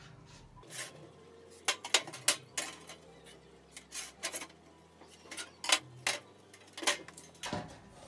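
Irregular light metallic clicks and taps, a dozen or so sharp ones, as a steel ruler, square and marker pen are set down on and moved along a perforated sheet-metal cable tray.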